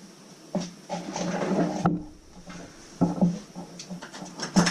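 Hand tools clattering and knocking as a screwdriver is dug out, with a rattling stretch about a second in and a few sharp knocks, the loudest near the end.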